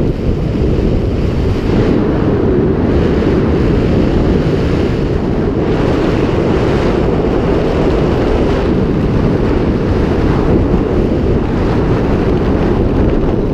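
Steady low wind rush buffeting a body-mounted camera's microphone as a skydiver flies under an open parachute canopy.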